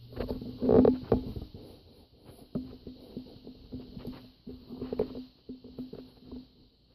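Rats eating cheese curds close to the microphone: irregular clicks and crunching of chewing and handling the food, loudest about a second in and again around five seconds.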